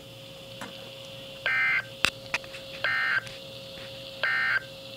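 NOAA Weather Radio EAS end-of-message signal: three short bursts of warbling digital data tones, evenly spaced about a second and a half apart, marking the close of the warning. A faint steady hum runs beneath them, and there is a sharp click about two seconds in.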